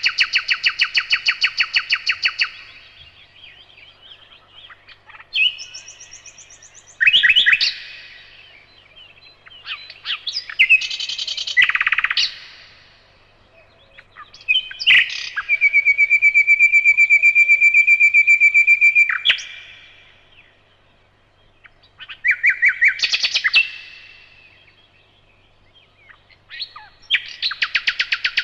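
Nightingale singing: a string of separate phrases with short pauses between them, each built of rapid repeated notes and trills, including one long fast-pulsed phrase on a steady pitch lasting about four seconds midway through.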